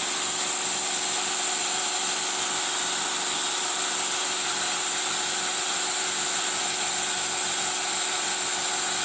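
Flex cable bonding machine running its main press: a steady hiss with a constant high-pitched whine.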